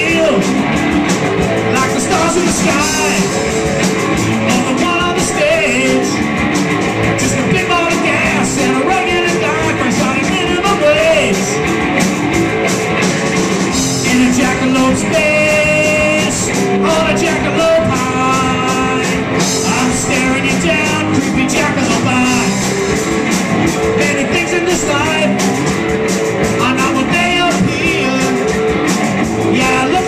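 Live rock band playing electric guitars, bass guitar and drums, with a man singing lead vocals into a microphone.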